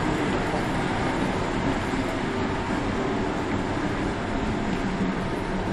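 Steady machine noise, an even, continuous rumble and hiss with no distinct beat.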